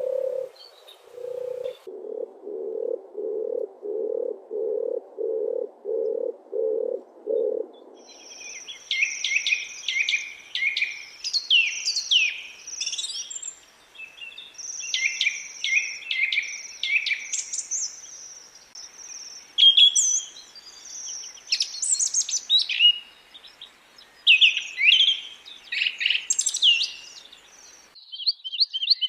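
A low call repeated in an even series of about two notes a second for the first eight seconds, then songbirds singing rapid high chirps, whistles and trills. Near the end a different fast, high trill cuts in.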